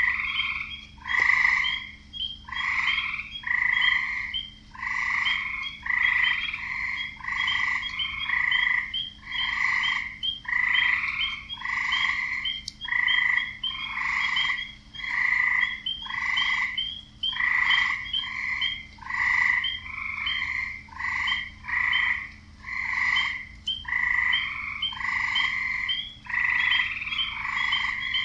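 Frogs croaking in a wetland chorus: short calls repeating about once a second, often overlapping, with no break.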